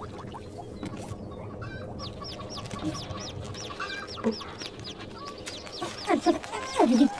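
Birds calling: a run of short, high chirps repeated a few times a second, with a few louder, lower calls near the end.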